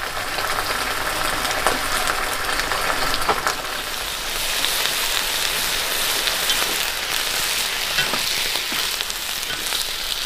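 Food frying in hot oil in a pan: a steady sizzle with scattered small crackles and pops.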